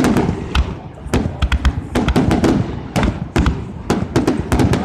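Fireworks going off in quick succession: sharp bangs and cracks about three to four a second over deep booms.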